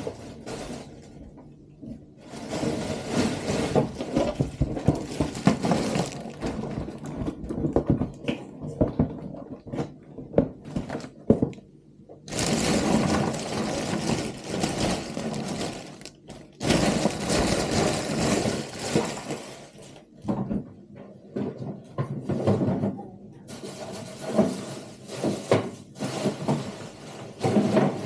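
A cardboard delivery box being opened and a large clear plastic bag crinkling and rustling as it is lifted out and handled, in long spells with short pauses. Occasional knocks and scrapes on the worktop.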